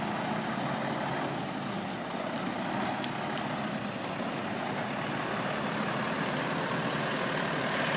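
Iveco lorry's diesel engine running steadily at low revs as the truck manoeuvres slowly, growing a little louder toward the end.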